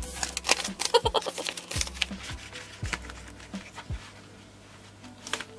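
Crinkling and clicking of paper banknotes and plastic zip pockets being handled in a cash-stuffing binder, busiest in the first few seconds. Quiet background music with a deep bass beat about once a second runs underneath.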